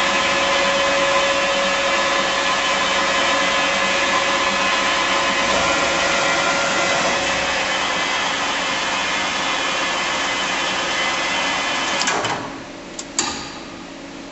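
Bridgeport Romi EZ-Path CNC lathe running its program, its spindle turning with a loud steady noise and a faint whine. The noise drops away about twelve seconds in, followed by a couple of sharp clicks.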